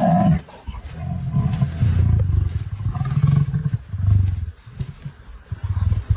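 A big cat making a series of deep, low calls, about five in a row, each lasting around a second, with short pauses between them.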